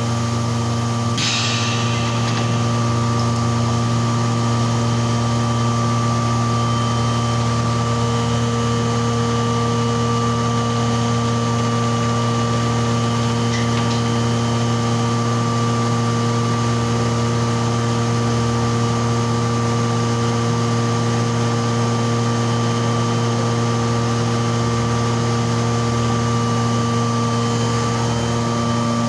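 Thermoforming (vacuum forming) machine running: a steady electric motor hum with a strong low drone, and a brief hiss about a second in.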